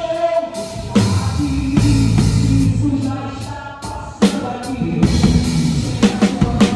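Live band playing gospel music: sustained keyboard chords over a bass line with sparse drum hits, easing off for a couple of seconds, then a drum hit about four seconds in and a run of quick drum hits near the end.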